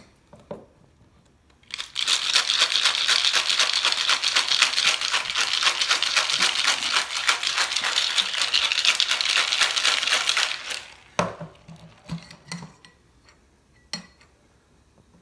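A Boston cocktail shaker, a mixing glass seated in a stainless steel tin, shaken hard for about nine seconds: a fast, steady rattle that stops suddenly. A few separate knocks and clinks follow as the shaker is handled.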